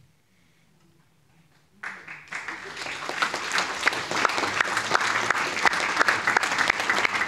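Audience applause at the end of a poem reading: a short hush, then steady clapping from many hands starting suddenly about two seconds in.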